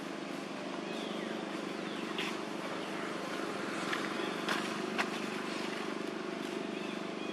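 Steady low mechanical hum, like an engine running at a distance, with a few sharp clicks about two, four and five seconds in and some faint high chirps.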